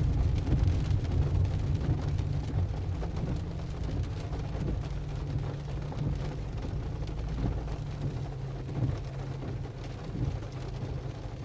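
Car driving in the rain: a steady low rumble of the car and road with the hiss and patter of rain over it.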